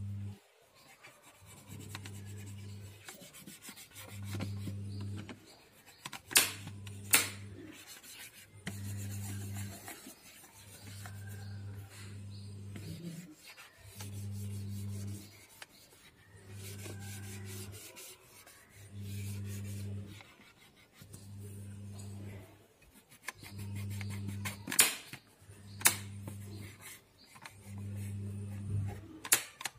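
Nail polish remover pad rubbing over a plastic wall switchboard plate in repeated wiping strokes, about one every two and a half seconds, with a few sharp clicks in between.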